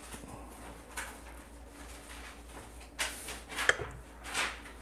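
A few light knocks and clicks of a glass and a small digital scale being handled and set down on a counter: a faint click about a second in, then a short cluster of knocks about three seconds in.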